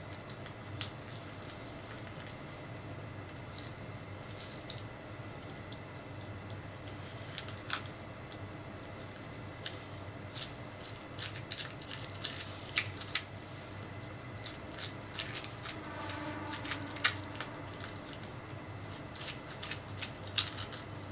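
A metal spoon scooping the flesh out of a halved orange: small wet squishing and scattered sharp clicks, coming more often in the second half.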